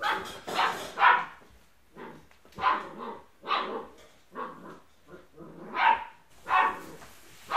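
Smooth Collie puppies barking in play, a string of about a dozen short barks, one or two a second.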